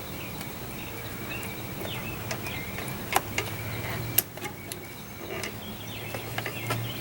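Sharp clicks and small knocks of hand work on a small-engine lawnmower carburetor, the two loudest about a second apart near the middle. Underneath are a steady low hum and birds chirping.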